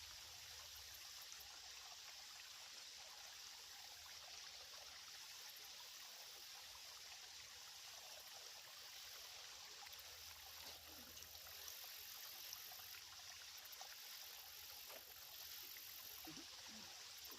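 Faint, steady trickle and flow of water in a shallow creek.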